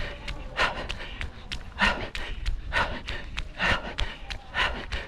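A runner's heavy breathing mid-race, a hard breath about once a second, with quicker footfalls ticking in between.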